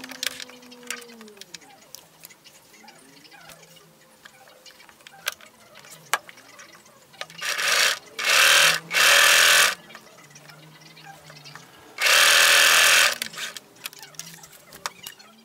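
Electric domestic sewing machine stitching fabric in short runs: three quick runs close together about halfway through, then one more run of about a second near the end, with quiet clicks and fabric handling between them.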